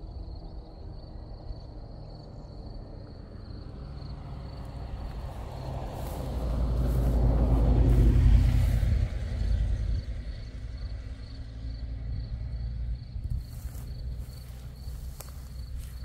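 A motor vehicle passing by, swelling to a peak about halfway through and then fading. Crickets chirp steadily throughout.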